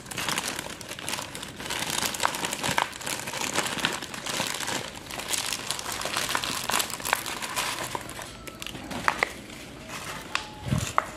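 Thin clear plastic bag crinkling and crackling as it is handled and pulled off a potted plant, with many small sharp crackles.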